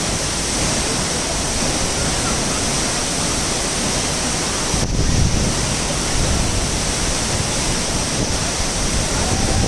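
Steady rushing of a waterfall, with wind buffeting the microphone and adding a low rumble in the second half; a momentary break about five seconds in.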